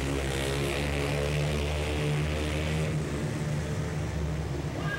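Two-stroke racing ATV engines, Honda TRX250R quads, running at high revs, their pitch holding fairly steady with small rises and dips.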